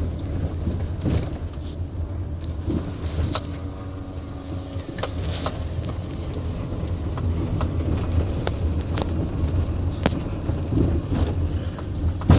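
Steady low rumble of a car being driven, heard from inside the cabin, with scattered knocks and rattles.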